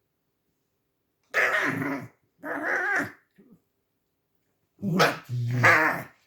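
Angry pet fox vocalising in short bouts: two wavering squealing calls, then lower growling calls near the end.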